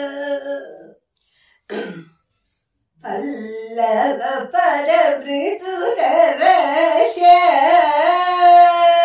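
An elderly woman singing Indian classical vocal music solo, her held notes bending and wavering in pitch. She stops about a second in, with one short sound in the gap, and resumes a couple of seconds later with long ornamented phrases.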